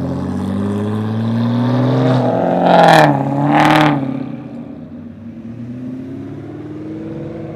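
Car engine revving with its pitch rising and falling, with two loud, sharp throttle blips less than a second apart near the middle, then settling back to lower revs.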